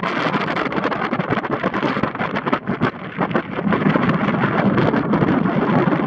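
Wind buffeting the camera microphone: a steady rough rush that grows louder about halfway through.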